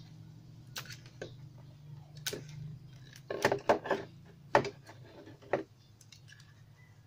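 Hands handling a plastic-cased Bluetooth amplifier module and its wires: a string of irregular clicks and knocks, loudest in a quick cluster around the middle, over a steady low hum.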